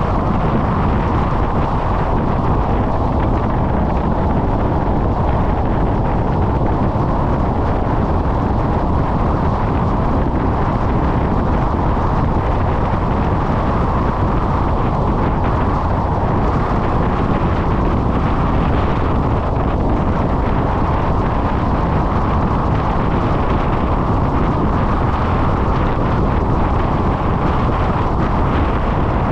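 Steady rush of wind and road noise from a car driving at speed, heard through a hood-mounted camera's microphone, even and unbroken throughout.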